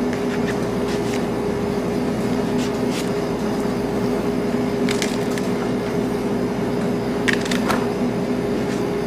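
Leeks being peeled by hand: a few short, crisp snaps and crackles as the outer layers are torn off, over a steady hum.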